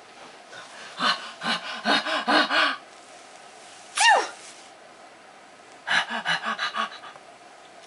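A baby giggling in a quick run of short bursts, then an adult's drawn-out 'achoo' sneeze falling in pitch, then the baby giggling again.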